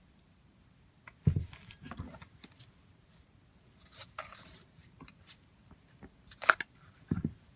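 Handling noise as knives and a tooled leather sheath are picked up and set down on a woven table mat: a few dull knocks, a short rustle in the middle and a sharp click about six and a half seconds in.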